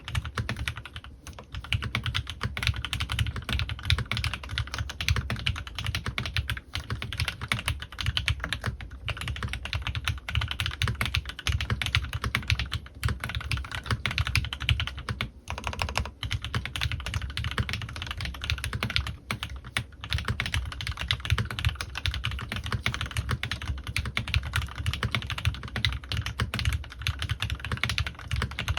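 Continuous fast typing on a CannonKeys Rekt1800 custom mechanical keyboard with lubed Gateron Ink Black V2 linear switches and PBTfans Resonance PBT keycaps: a dense run of keystroke clacks, with brief pauses about a second in and around the middle.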